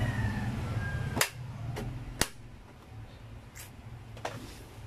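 A handful of sharp clicks and knocks from a plastic socket set case being handled. The two loudest come about a second apart early on, followed by fainter ones.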